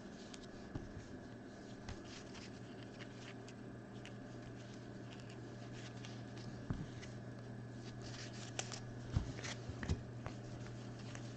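Trading cards being sorted by hand: faint slides and light taps of cards, a few sharper clicks after the middle, over a steady low hum.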